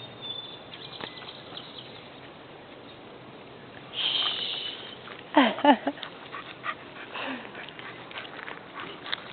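A dog whining and grumbling: two short calls that bend and fall in pitch, close together about halfway through, and a fainter one a couple of seconds later. Just before them comes a brief high hiss.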